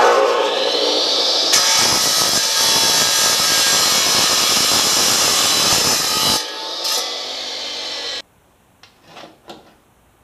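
DeWalt abrasive chop saw spinning up with a rising whine, then its cutoff wheel grinding through a piece of metal for about five seconds. The wheel then runs free, more quietly, until the sound stops abruptly, and a few light knocks follow near the end.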